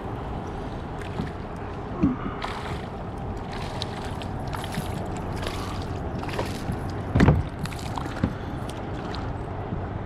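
Water splashing at a kayak's side while a hooked smallmouth bass is landed, with knocks on the hull. The loudest is a heavy thump about seven seconds in.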